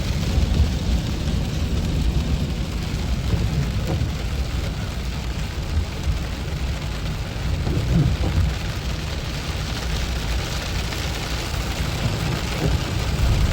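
Rain on a moving car, heard from inside the cabin: a steady hiss of rain over a continuous low road rumble.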